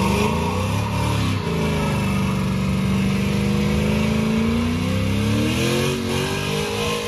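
A Chevrolet Monte Carlo SS's V8 held at high revs through a burnout, the rear tyres spinning and smoking. The engine pitch dips briefly about a second in, holds steady, then climbs slowly near the end.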